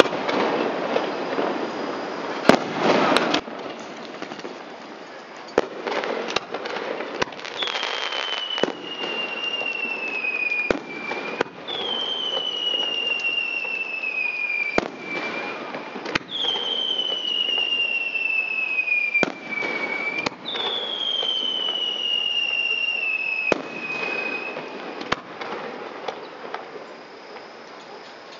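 Fireworks display: sharp bangs of bursting shells, spaced a second to a few seconds apart. Through the middle come four long whistles, each falling in pitch over about three seconds.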